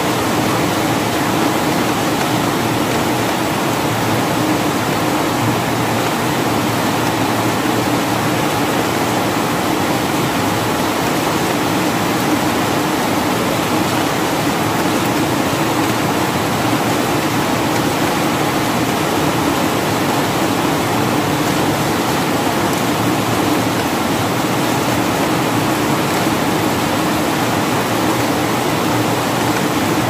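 Rain falling steadily: a constant, even rush of drops that holds the same strength throughout.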